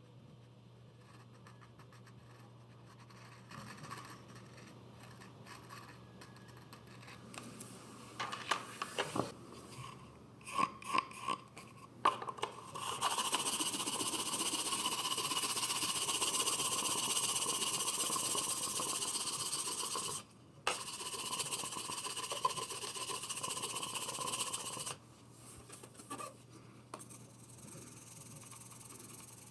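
A few short scratches and scrapes on a floor tile repair, then a steady, even mechanical noise from about thirteen seconds in, with a short break near twenty seconds, stopping around twenty-five seconds.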